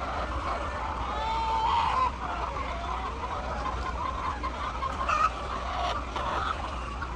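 Hens clucking and calling, with one drawn-out call about a second in and shorter clucks later, over a steady low hum.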